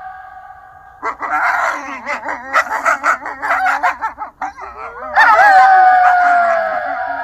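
Wolves yipping and barking in quick, choppy, wavering calls for a few seconds. About five seconds in, a long howl rises sharply and then holds a steady tone that slowly sinks. The first second is the fading tail of an earlier howl.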